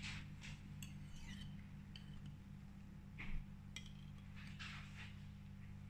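Wire whisk folding beaten egg whites into yolks in a bowl: faint soft swishes, with a few light clicks of the whisk against the bowl, over a steady low hum.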